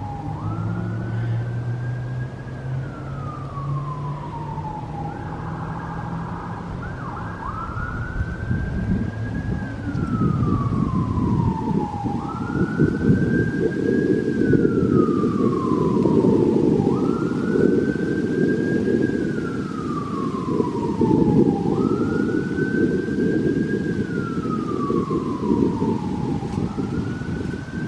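Emergency vehicle siren on a wail, sweeping quickly up in pitch and gliding slowly back down, over and over about every five seconds. A low rushing noise swells beneath it from about eight seconds in.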